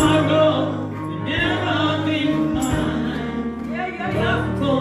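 A woman singing a slow gospel song into a microphone, her voice amplified, over steady sustained accompaniment chords.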